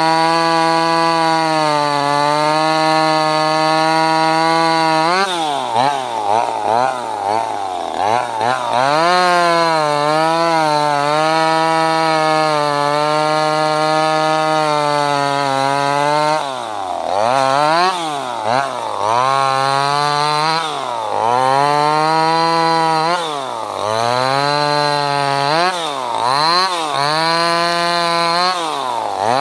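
Wudee 25cc two-stroke top-handle chainsaw running at high speed. From about five seconds in, its engine speed repeatedly drops and climbs back up, with a steadier stretch in the middle.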